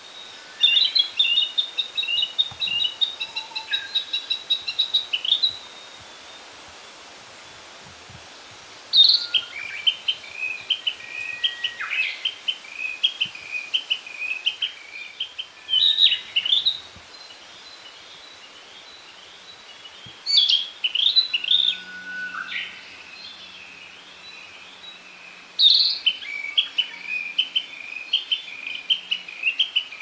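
Male narcissus flycatcher singing: five phrases of quick, repeated whistled notes, each a few seconds long, separated by short pauses.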